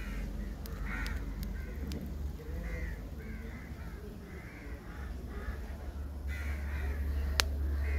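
Birds calling repeatedly in short calls, with a few sharp clicks and a low rumble that grows louder near the end.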